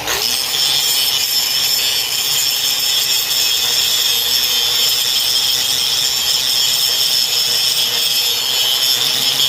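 Angle grinder grinding down torch-cut steel: a loud, steady grinding that holds without letting up.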